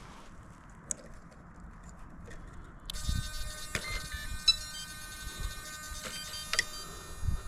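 An electronic whine with several short beeps comes on suddenly about three seconds in, over faint low thumps.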